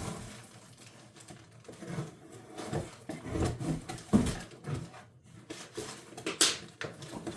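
Irregular rustling, handling noises and light knocks of a box's contents being unpacked, with a sharper knock about four seconds in and a short crisp rustle near the end.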